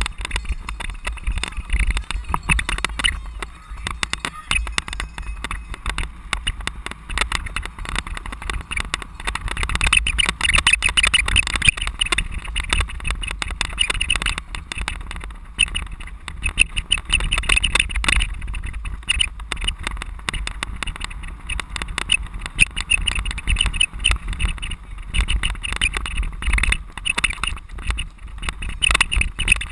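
Bicycle-mounted camera jolting over a rough dirt cyclocross course: continuous rattling and knocking from the bike and mount, with a low wind rumble on the microphone and tyres on dirt.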